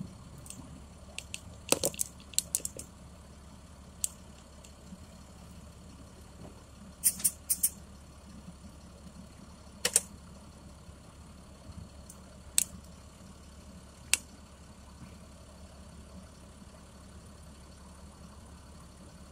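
Vehicle engine idling, heard from inside the cabin as a steady low hum, with a dozen or so sharp clicks and taps scattered through the first three quarters.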